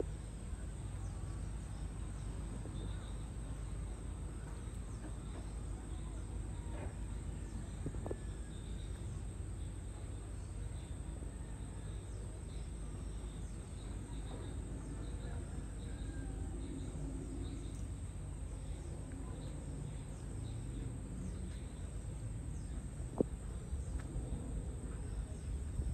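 Outdoor tropical ambience: a steady low rumble with faint, repeated insect chirping and the odd bird call, as rain clouds approach.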